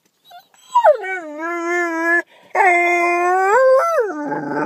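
Boxer mix dog howling in drawn-out 'talking' vocalizations: a long howl that slides down in pitch and holds, a second long one that lifts at its end, then a lower, rougher grumbling call near the end.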